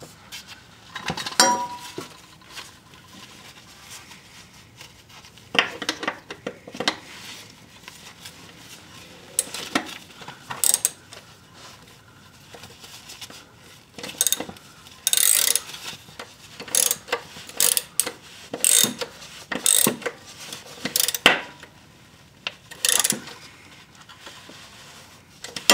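A 3/8-inch ratchet on an extension clicking as it turns a mower's oil drain plug back in. The clicks come in short runs, closer together and louder in the second half, as the plug is snugged down.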